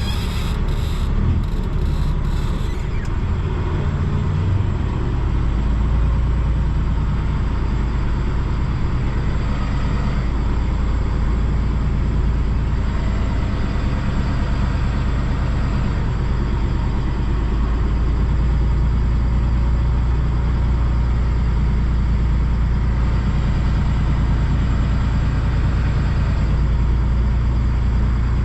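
Semi truck's diesel engine running with a steady low drone, the level holding evenly throughout.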